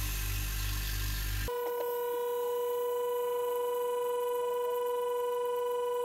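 Vacuum pump's electric motor running with a steady low hum as it evacuates the heat pump's refrigerant circuit to remove the air. About a second and a half in, the sound switches abruptly to a steady high-pitched tone, like a dial tone.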